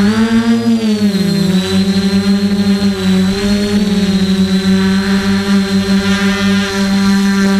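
DJI F450 quadcopter's electric motors and propellers humming steadily, heard close up from its own frame. The pitch rises and then dips during the first second and a half, then holds level.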